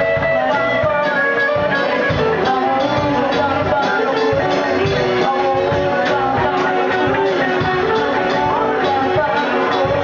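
Live band playing with a steady beat: conga drums and drum kit under guitar, with singing.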